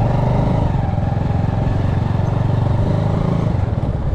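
Bajaj Avenger 220 motorcycle's single-cylinder engine running steadily as the bike is ridden, easing off slightly near the end.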